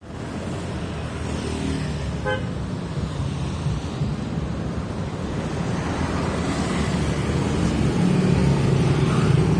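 A motor vehicle engine running amid road traffic noise, slowly getting louder, with one short beep about two seconds in.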